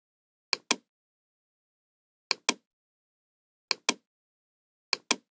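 Computer mouse clicking: four double clicks spread over about five seconds, each a pair of sharp clicks about a fifth of a second apart.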